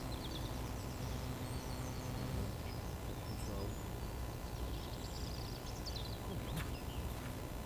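Outdoor background noise with a few bird chirps near the start and again about five seconds in, over a low steady hum that stops about two and a half seconds in.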